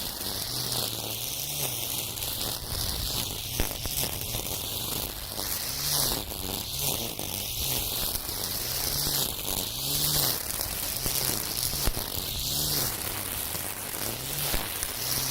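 Makita 40V cordless string trimmer's electric motor running under load, its hum dipping and recovering in pitch over and over as the spinning nylon cord cuts through overgrown weeds. The cord whirs, with scattered ticks as it strikes stems.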